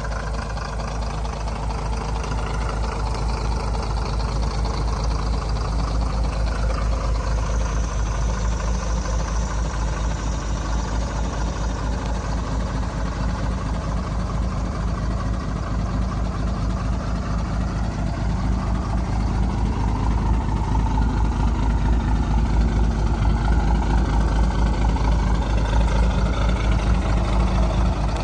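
Caterpillar 3116 inline-six turbo diesel idling steadily with an even, rapid pulse, growing gradually louder over the clip.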